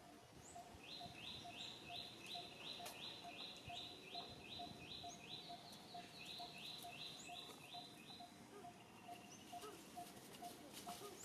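Outdoor natural ambience with an animal call: a rapid, even series of high notes, about four to five a second, lasting some seven seconds, over a faint steady pulsing in the background.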